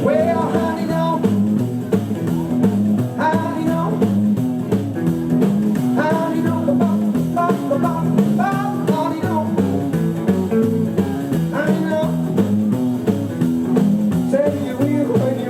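Live rockabilly band playing a guitar-led passage, electric guitar over a steady stepping bass line and drums.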